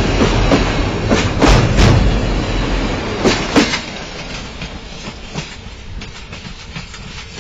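Romanian Railways (CFR) passenger coaches rolling past close by, their wheels clicking over the rail joints in quick pairs. About three and a half seconds in the last coach goes by, and the rumble fades as the train moves away.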